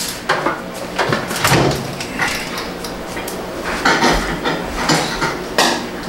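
Handling noise as a countertop microwave oven is lifted off a kitchen counter and moved: a string of irregular knocks, clunks and rattles.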